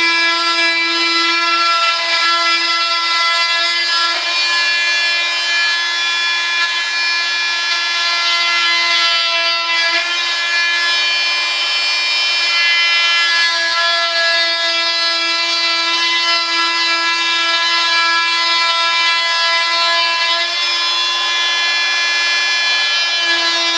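Oscillating vibrating saw running with a steady, high-pitched buzz, its rasp swelling now and then as the blade cuts into a fiberglass part.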